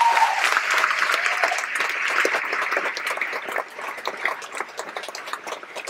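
Audience applauding, with a whoop of cheering at the start; the clapping thins out and fades toward the end.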